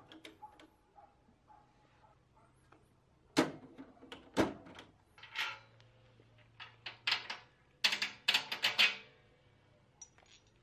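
Steel welding cart with a folding table extension being handled, giving sharp knocks and clanks with short metallic ringing. There are two hard hits about three and four seconds in, then a quicker run of rattling clanks about seven to nine seconds in.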